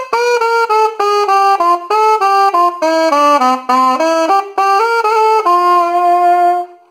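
Alto saxophone playing the song's closing run: a quick string of short notes that dips lower midway and climbs back, ending on one long held note about two-thirds of the way through.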